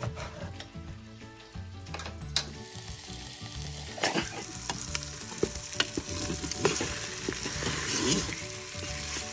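Background music for the first couple of seconds. Then marinated chicken pieces sizzle as they brown in hot oil in the non-stick bowl of a Cookeo multicooker, with a few sharp clicks as the pieces are moved.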